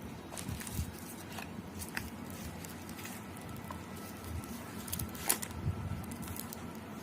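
Scattered light clicks and taps of handling, the sharpest about five seconds in, over a faint steady hiss.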